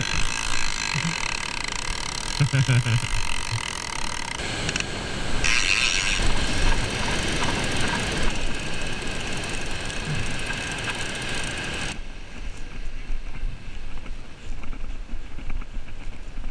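Heavy Penn conventional fishing reel whirring under the load of a hooked shark: a steady, high mechanical whine that dies down about twelve seconds in.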